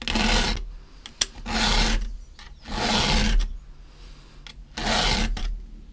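Round chainsaw file rasping across the cutter teeth of a Stihl saw chain in four strokes of about half a second each, with a sharp click between the first two. The worn cutters are being filed back into shape.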